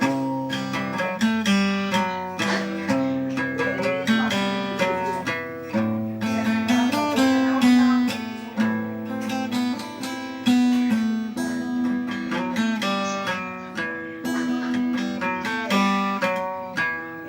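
Acoustic guitar playing an instrumental passage, plucked and strummed notes with no singing.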